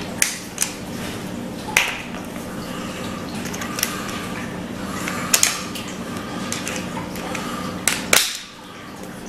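Metal handguard band of an M91/30 Mosin Nagant rifle being worked by hand up the barrel: scattered clicks and short scrapes of metal against metal and wood, over a steady low hum.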